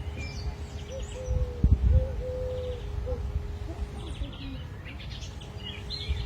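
A dove cooing: a run of low, held notes repeated over the first few seconds, with small birds chirping higher above it, more of them near the end. A low rumble runs underneath and swells briefly about a second and a half in.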